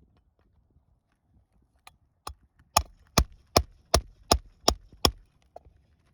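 Hammer striking a steel shingle-removal tool (roof snake) in a quick run of about seven sharp blows, nearly three a second, after a couple of lighter taps, driving it under an asphalt shingle to pull out the roofing nails.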